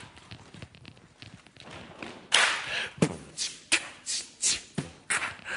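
A group doing vocal and body percussion together: faint taps for the first two seconds, then about two seconds in a rhythmic run of hissed 'ch' and 'ts' beats, some landing with a low thump.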